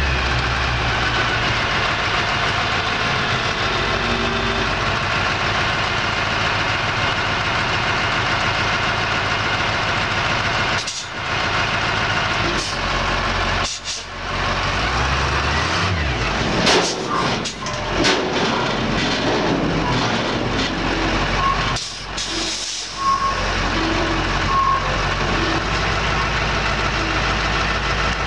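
Bobtail dump truck's diesel engine running steadily, broken by a few sudden dips and clatters midway and a few short high beeps later on.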